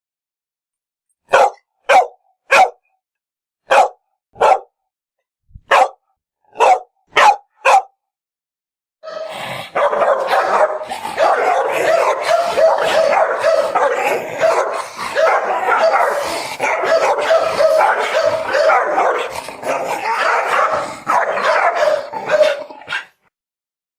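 Dog barking: about nine sharp single barks over the first eight seconds, coming in twos and threes. From about nine seconds in comes a dense, unbroken stretch of barking that stops about a second before the end.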